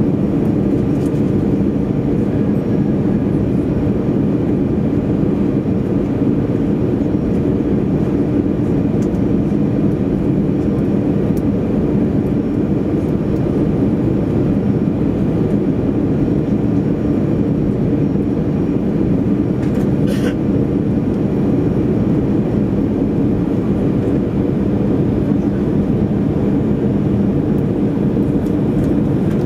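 Steady drone of an Airbus A320's engine and airflow heard inside the cabin beside the engine as the airliner descends on approach to land. A single brief click about twenty seconds in.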